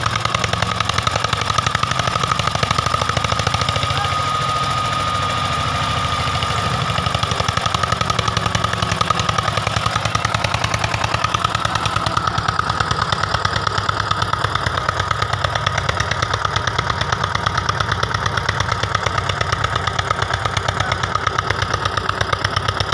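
Eicher 242 tractor's diesel engine running hard under load while hauling a trailer, a fast, steady, loud chugging with no let-up.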